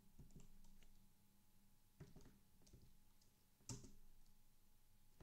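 Faint computer keyboard typing: a few scattered key presses, with two sharper keystrokes about two seconds in and just before four seconds.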